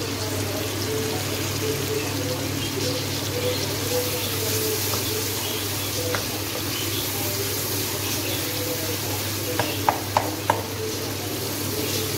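Chopped tomatoes sizzling and bubbling as they cook down in a non-stick wok on a gas stove, stirred with a wooden spatula, over a steady low hum. A few sharp knocks of the spatula against the pan come about ten seconds in.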